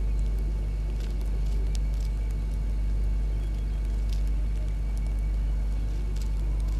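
Steady low rumble and hum with a faint, steady high-pitched whine and a few faint clicks scattered through it.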